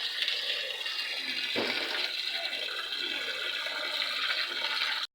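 Water gushing and splashing steadily, with a single knock about one and a half seconds in; it cuts off suddenly near the end.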